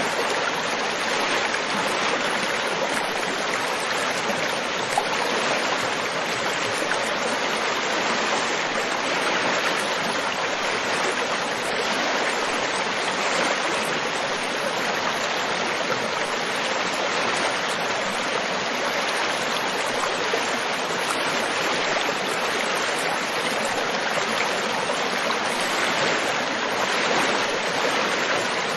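River water flowing over rocks in a steady rushing babble.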